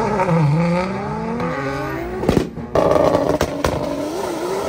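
Tuned drag cars' engines revving at the start line. Revs dip, then climb steadily for about two seconds. After a brief break, an engine is held at high revs with a short wobble.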